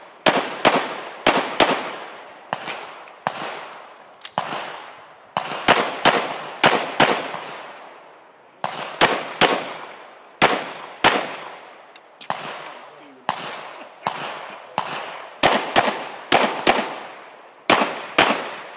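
Semi-automatic pistol shots fired in quick pairs and short strings, each shot followed by a short ringing echo, with a pause of about a second and a half near the middle.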